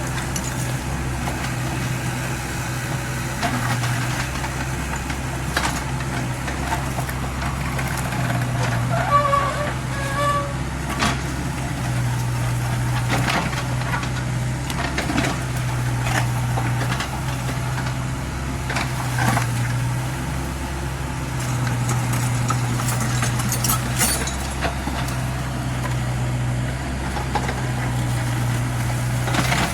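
Kubota U50 mini excavator's diesel engine running, its low drone swelling and easing every second or two as the hydraulics take load. Scattered knocks and clanks run through it, with brief squeaks about ten seconds in.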